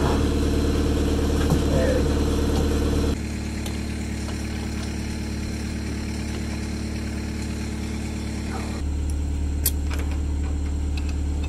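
A heavy machine's engine idling steadily, dropping in level about three seconds in and rising again near the end. A few sharp metallic clicks near the end, from the ratchet strap's hook and buckle.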